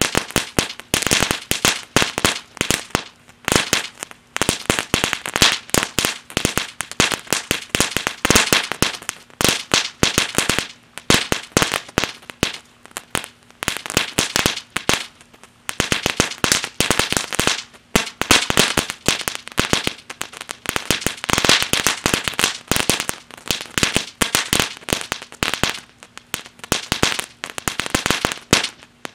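Crackling Dragon 1.4G crackle fountain by Imperial Dragon burning on the ground: a dense, unbroken stream of sharp crackling pops that comes in waves, with a few brief lulls.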